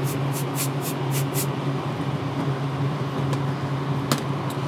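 Compressed air blown in short hissing blasts, about four a second, dusting out an opened hard drive. The blasts stop about a second and a half in. A steady low hum runs underneath, and there is a single click near the end.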